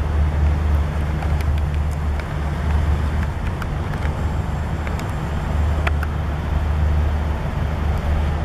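Steady low rumble of distant highway traffic, with a few faint clicks over it.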